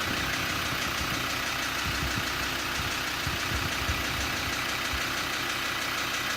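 Land Rover Td5 five-cylinder turbodiesel engine idling steadily, with a clacking, rattling noise coming from it: an abnormal engine noise.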